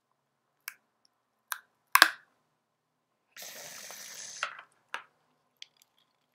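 Handling noise from taking a Fidget Cube out of its box: several sharp taps and knocks of plastic and cardboard, the loudest about two seconds in, then about a second of rustling and scraping, with a couple of small clicks after it.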